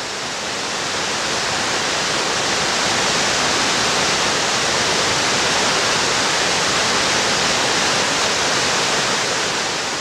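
Minnehaha Falls pouring into its plunge pool: a steady, dense rush of falling water that swells slightly in the first couple of seconds and begins to fade near the end.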